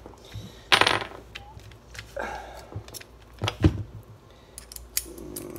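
Handling noise from a drill bit being fitted into a hand-held drill chuck: small scattered metal clicks, a brief scraping rustle about a second in, and a sharp knock about three and a half seconds in.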